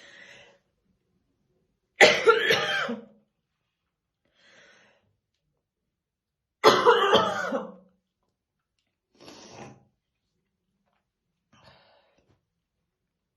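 A woman's chesty smoker's cough in two loud fits of several coughs each, about two seconds in and again near seven seconds, with softer throat clearing in between.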